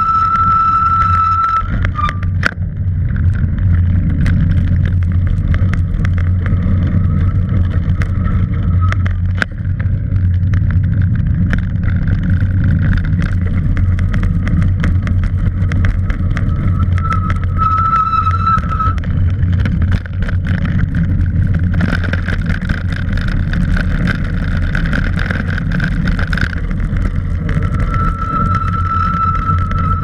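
Cross bike coasting down a concrete path: a steady rumble of wind on the microphone and tyres on the concrete, with scattered clicks and knocks from bumps. A high steady whine from the bike comes in at the start, again around the middle and near the end.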